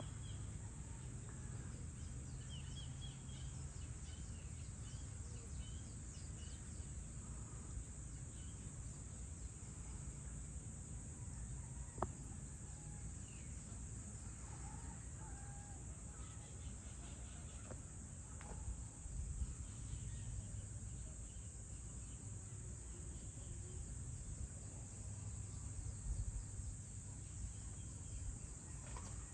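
Dusk outdoor ambience: a steady, high-pitched insect chorus with scattered faint bird calls over a low background rumble. Two brief clicks, near the middle and about two-thirds of the way in.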